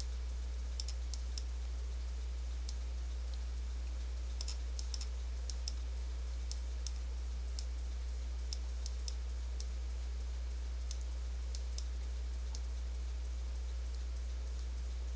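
Computer mouse clicks, single and in quick pairs, scattered irregularly over a steady low hum.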